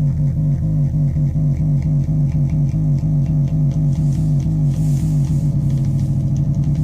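Metsään Dirty Drone [anarchy] synthesizer's triangle-wave oscillators playing a low, buzzy drone that pulses rapidly and evenly, with faint clicking on top.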